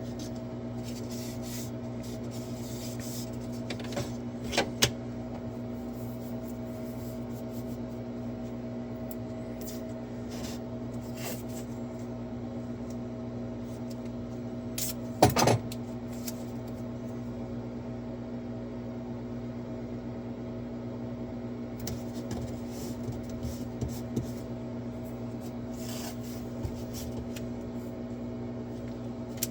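Steady electrical hum of shop equipment, with small handling noises of masking tape and pieces of wood being handled and stuck down: light taps and rustles, and a sharper knock about fifteen seconds in.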